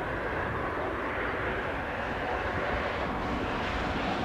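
The four turbofan engines of a Boeing C-17A Globemaster III running at taxi power, a steady, even jet noise.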